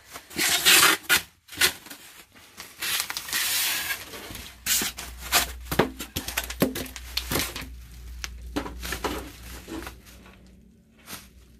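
Bubble wrap crinkling and rustling as it is handled and pulled off a bistro chair, with scattered sharp crackles and knocks. Busiest in the first few seconds, then quieter toward the end.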